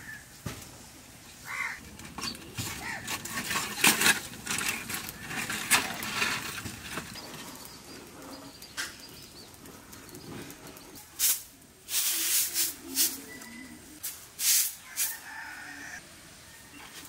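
Irregular rustles, scrapes and knocks of food being prepared by hand over an open wood fire, loudest in a cluster of sharp knocks about two thirds of the way through, with a few short high chirps.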